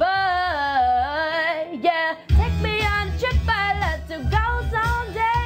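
A female singer singing over a pop/R&B backing track. She holds a long, bending note while the bass and beat drop out, and the beat comes back in about two seconds in under further sung lines.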